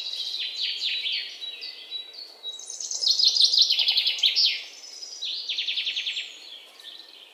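A songbird singing a series of high, quick downward-sweeping notes, then fast trills. The loudest trill comes about three seconds in and a shorter one near the end.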